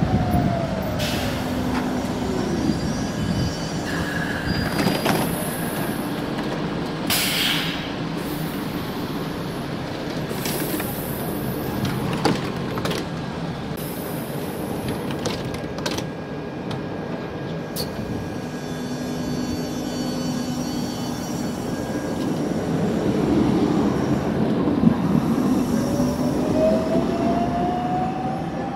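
DUEWAG GT8 Stadtbahn light-rail car braking to a stop, its traction motor whine falling in pitch. It stands with a steady hum and a few clicks and short hisses, with one louder hiss about seven seconds in. Near the end it pulls away, the motor whine rising in pitch.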